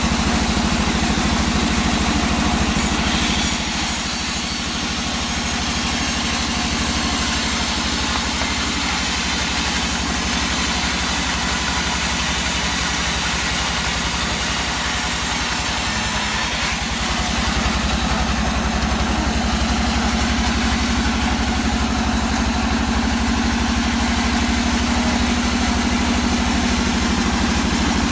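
An engine driving a log saw runs steadily at constant speed with a low, even throb; from about three seconds in until past the middle a high hiss rides on top, then stops.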